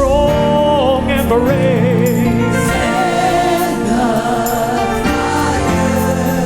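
Gospel worship song: voices singing long, wavering held notes over a band accompaniment.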